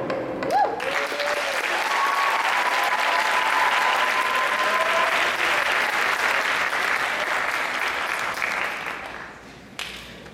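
Music ends in the first second, then a theatre audience applauds and cheers, with a few long held shouts over the clapping. The applause dies away near the end.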